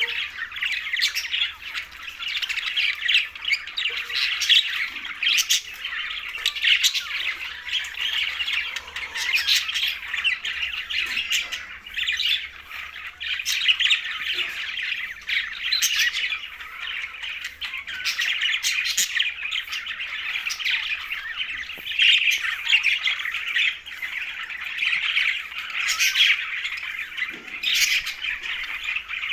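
A flock of budgerigars chattering and squawking continuously, with many short sharp calls over a constant warbling.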